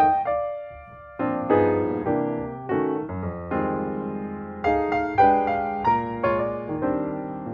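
Background piano music: chords struck one after another with a held note and a short pause about a second in.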